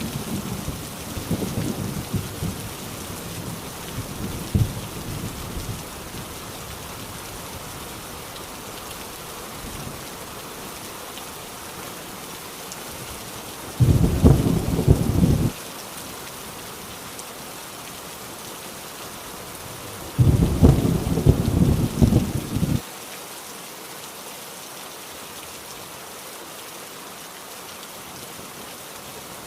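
Heavy rain falling steadily with thunder: a low rumble dying away in the first few seconds, then two loud thunderclaps, about 14 and 20 seconds in, each rumbling for a second or two before stopping abruptly.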